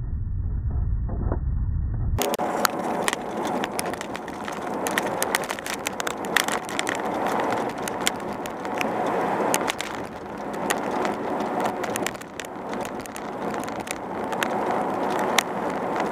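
A car driving along a highway, its road and wind noise heard from inside. The sound is a dull low rumble for about two seconds, then turns brighter and fuller, with frequent crackling clicks.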